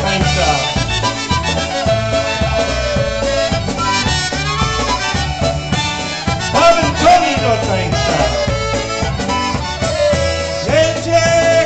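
Live polka band playing an instrumental passage of a Polish polka, the clarinet carrying the melody over a steady band beat.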